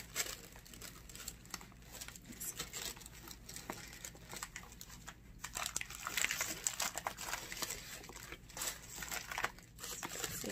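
Tissue paper crinkling and rustling on and off as a handbag is handled and unwrapped in its packing box, a little louder about six seconds in.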